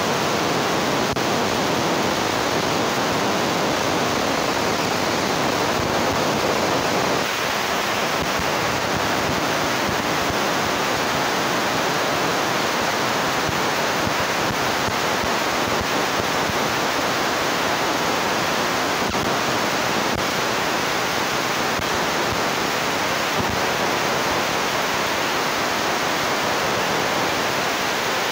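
Steady rushing noise that eases slightly about seven seconds in.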